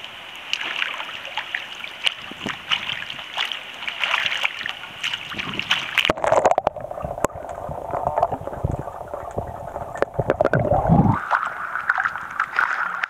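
Pool water sloshing and splashing close to the microphone as a swimmer kicks upright in the water, with many small splashes and drips. About six seconds in the sound turns duller.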